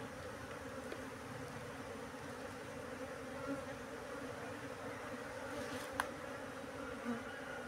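Honeybee colony buzzing as a steady hum of many bees clustered and flying around an open container. A single sharp click about six seconds in.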